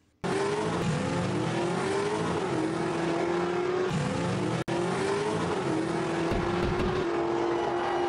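Race car engine accelerating hard and shifting up through the gears: the pitch climbs, drops at each shift, then climbs again. There is a brief dropout a little past halfway.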